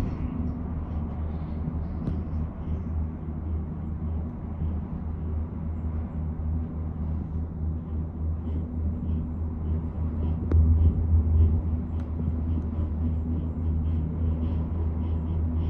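Steady low rumble inside a Doppelmayr eight-passenger gondola cabin as it rides along the haul rope, swelling briefly louder about two-thirds of the way through, with a couple of faint clicks.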